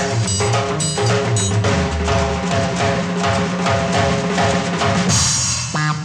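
Instrumental passage of a 1970s Pakistani film-song funk track: a drum kit beat with bass drum and snare over a bass line. A high hissing swell comes in about five seconds in, with a brief drop just before the end.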